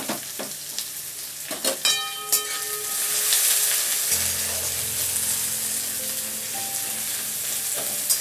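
Sliced onions sizzling as they fry in hot mustard oil in a metal kadai, with a spatula scraping and knocking against the pan as they are stirred, most sharply in the first couple of seconds.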